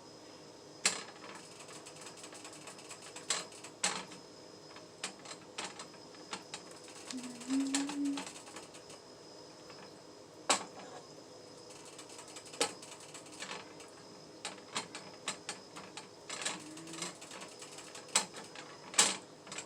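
Irregular light clicks and knocks of a utensil against a mixing bowl as flour is folded into cake batter by hand, with a faint steady hum behind.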